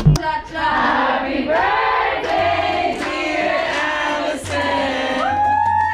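A group of people singing together, holding long notes that slide up and down in pitch.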